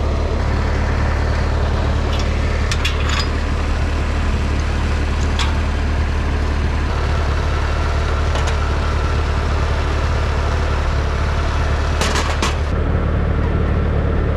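Tractor engine running steadily, with a few short sharp clicks over it.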